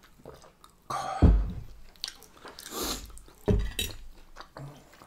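Close-miked chewing and mouth sounds of people eating, with dull knocks on the table, the loudest about a second in and another about three and a half seconds in.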